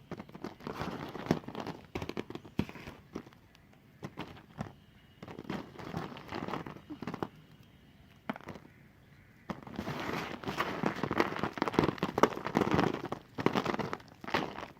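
A knife cutting through a bar of white soap, making dense runs of small crisp clicks and scraping. There are three runs of cutting, the longest and loudest starting about two-thirds of the way in.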